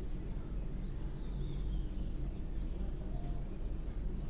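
A steady low rumble, with small birds chirping now and then, one call sliding downward about a second and a half in.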